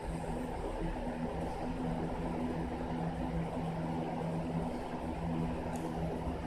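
Steady low hum of background noise, with two faint held tones that come and go; no other sound stands out.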